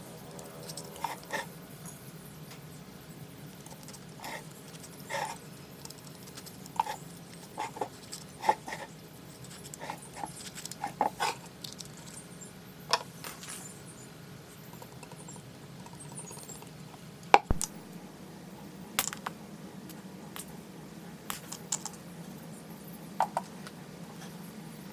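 Scattered light clicks and knocks of parts and tools being handled on a workbench, with one sharp click about 17 seconds in, over a steady low hum.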